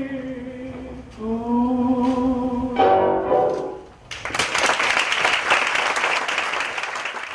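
Recorded tango song ending: a singer holds the last long notes over the orchestra, and the final chord sounds about three seconds in and fades. About four seconds in, the audience breaks into steady applause.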